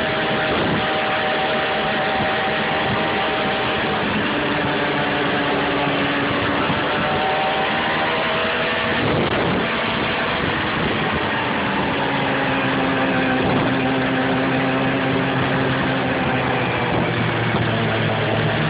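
Snowmobile engine running under way, its pitch dropping and rising several times as the throttle changes, over a steady rushing noise.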